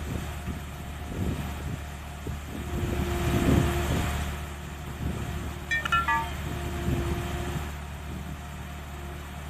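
Engine idling steadily under a skid-steer loader and flatbed tow truck, with a steady whine rising twice for about a second each. A quick run of descending high chirps sounds a little past the middle.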